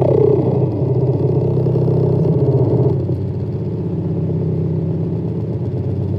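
Two square-wave oscillators through a Duber dual bandpass filter, giving a low buzzing synth drone. A downward filter sweep settles into the drone in the first moment. About three seconds in, the drone's brighter upper tones drop away and it gets a little softer.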